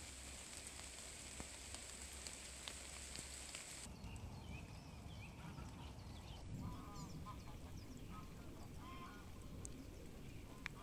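Light rain falling, first on leaves with a steady high hiss that stops about four seconds in, then on the open water of a lake. From about five seconds in, waterfowl honk several times.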